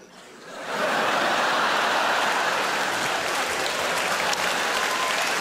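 A theatre audience breaking into applause about a second in, then clapping steadily and densely.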